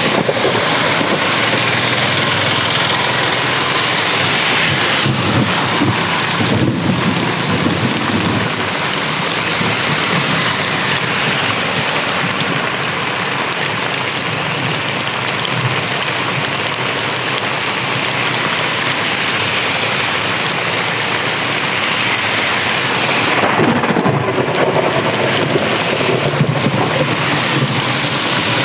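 Heavy rain pouring steadily in a thunderstorm, with a low rumble swelling twice: once about a fifth of the way in and again near the end.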